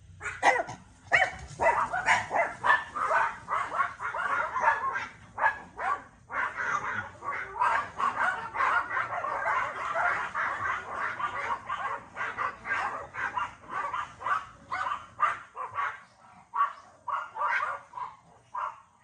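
Several papillons barking and yapping, many sharp high yaps overlapping into a near-continuous chorus that thins to separate yaps near the end.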